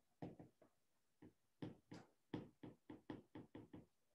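Stylus writing on a tablet's glass screen: a quick, irregular run of about a dozen faint taps and clicks as the pen strikes and lifts, stopping shortly before the end.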